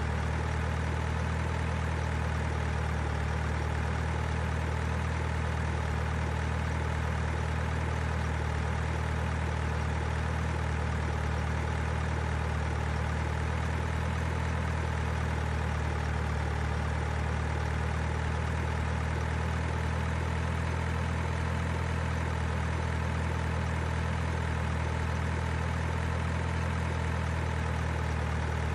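Engine idling steadily: an even, unchanging low hum with no revving or change in pace.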